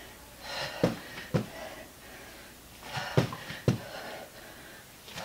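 Hard breathing with three pairs of dull thumps on the floor, the two thumps of each pair about half a second apart and the pairs about every two and a half seconds: feet jumping out and back in during jack-leg push-ups.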